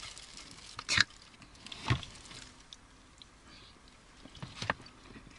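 Quiet table sounds of eating: a few soft clicks and knocks from a plastic spoon and takeaway containers, about a second in, near two seconds and again near the end, with long quiet stretches between.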